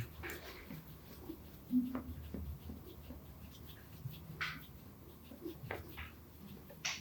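Faint, intermittent swishes of massage strokes rubbing on bare skin, each a second or more apart. A short low tone comes just before two seconds in, over a low steady hum.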